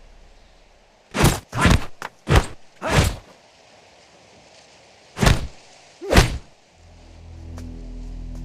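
A series of about seven short, dull thuds, five close together and then two more a few seconds later. Near the end, slow string music begins.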